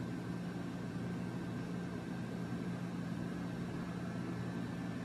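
Steady low hum with an even hiss: background room noise, with no distinct events.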